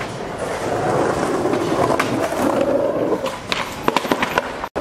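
Skateboard wheels rolling on concrete, then several sharp clacks as the board hits the ground and the skater bails off it and runs out.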